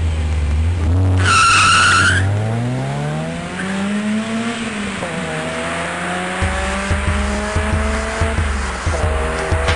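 Opel Corsa launching hard from a standing start. It is held at steady revs, then its tyres squeal for about a second as it pulls away. The engine then climbs in pitch through the gears, dropping at upshifts about five and nine seconds in.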